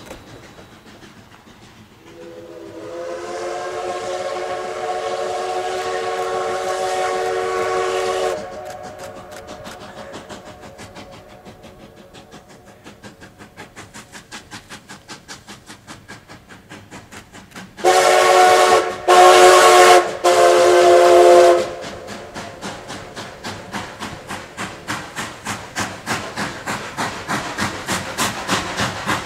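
Narrow-gauge steam locomotive working: one long blast on a chime whistle of several notes, then the regular beat of its exhaust chuffing, broken about two-thirds of the way in by three whistle blasts in quick succession. The chuffing grows louder toward the end as the engine comes closer.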